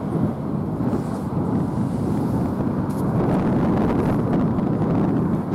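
Wind buffeting the camera microphone: a steady, fairly loud low rumbling noise.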